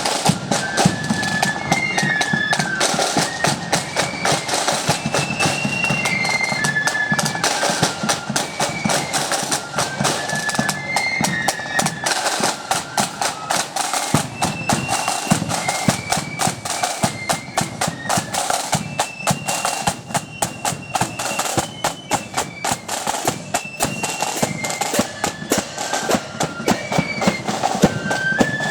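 Marching flute band playing a quick tune: a high flute melody over rapid snare drum strokes and bass drum beats.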